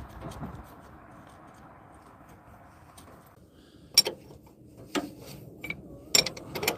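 A few sharp metallic clinks and clicks in the last three seconds, from small steel parts (washers, castle nut) being handled. A faint hiss stops about three seconds in.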